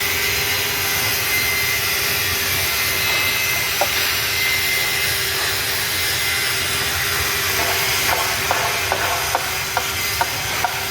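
A machine running with a steady hiss and a constant hum, joined by a few light taps in the last few seconds.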